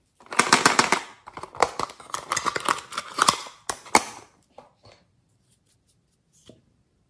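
Hard plastic toy purse case being handled and opened: a rapid crackle of plastic clicks and clatter, ending in two sharp snaps, then a few faint ticks as a small lip gloss tube is handled.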